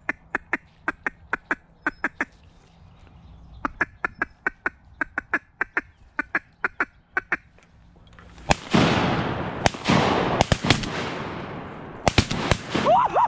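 Two runs of rapid, evenly spaced mallard quacks. About two-thirds in, a volley of roughly seven shotgun shots follows in quick succession, each echoing off the water and timber.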